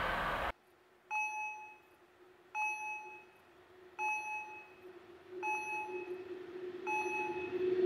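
Level-crossing warning bell striking five times, evenly, about once every one and a half seconds, each strike a short ringing ding. Under it a steady low hum from the approaching train grows louder near the end. In the first half second the rumble of a passing train cuts off suddenly.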